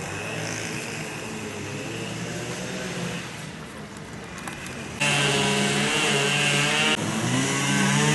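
A small engine running, faint at first, then suddenly much louder about five seconds in. It holds a steady pitch, breaks off briefly near the end, and comes back wavering up and down.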